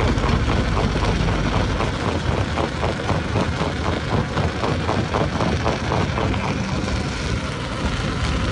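Heavy stone-crushing machinery running steadily and loudly, with a rapid, regular clatter of knocks for a few seconds in the middle.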